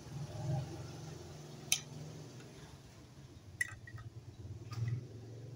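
A few light, sharp plastic clicks and taps, spaced a second or two apart, as a plastic toy fishing rod and its plastic toy fish are handled over a basin of water, over a faint low hum.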